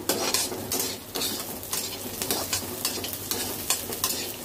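Chopped onion, peanuts and green chillies sizzling in oil in a steel kadai, while a perforated steel spatula stirs them, scraping and knocking against the pan in repeated irregular strokes.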